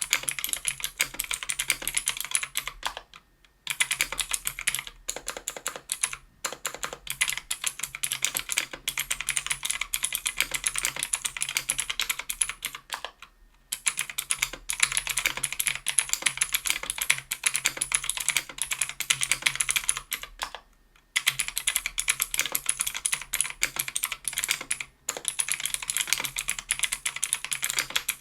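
Fast, continuous typing on a 60% mechanical keyboard with stock NovelKeys x Kailh Pro Heavy Sage 95g switches, an aluminum plate and case, and GMK keycaps. The keystrokes come in rapid runs broken by brief pauses.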